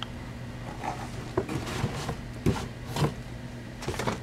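Handling noise of a coiled corrugated plastic hose being lifted and moved about in a cardboard box: irregular rustles, scrapes and a few light knocks.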